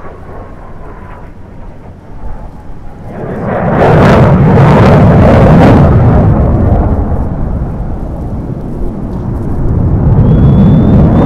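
CF-18 Hornet fighter jet's twin General Electric F404 turbofans, a loud roar that swells sharply about four seconds in, eases off a little, then builds again near the end as the jet passes.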